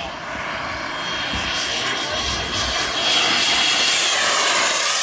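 Turbine engine of a ViperJet RC model jet making a low pass: a steady high whine over a rushing jet roar that grows louder over the first three seconds and stays loud. Near the end the pitch sweeps as the jet goes by.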